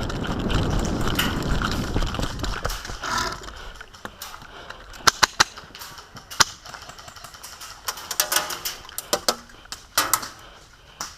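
Rumbling movement and gear noise for about the first three seconds, then scattered sharp airsoft gun shots: single snaps and a quick burst about eight seconds in.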